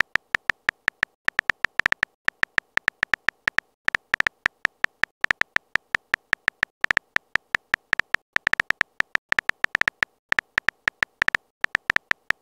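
Phone keyboard typing sound effect: short, identical key clicks several times a second, in uneven runs with brief pauses, as a text message is typed out letter by letter.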